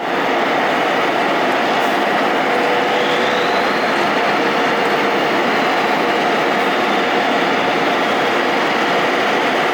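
Steady vehicle noise: a dense, even rush with no clear engine note, and a faint high whine rising a little about three seconds in.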